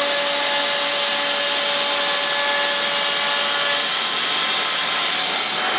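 CNC machine cutting, a steady loud whir and hiss with a faint spindle whine. Near the end the hiss cuts off suddenly and the sound drops.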